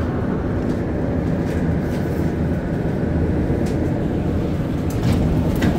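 MR-73 rubber-tyred metro train slowing into a station, heard from inside the car: a steady low rumble of the running gear, with a few sharp clicks near the end.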